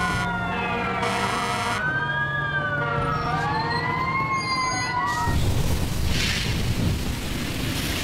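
Several fire truck sirens wailing at once, their pitches rising and falling and crossing each other, over a low rumble. About five seconds in, a steady hiss joins.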